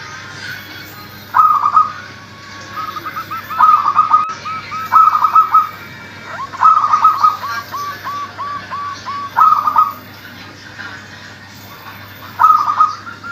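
Local Indonesian zebra doves (perkutut) cooing in full voice. Loud clusters of rapid cooing notes come every one to three seconds, with quieter runs of short repeated coo notes between them.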